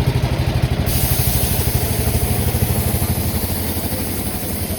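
A vehicle engine running close by with an even, rapid chug, easing off slightly about three seconds in.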